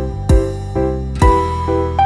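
Background music: held keyboard chords over a steady beat of low thumps, about one a second.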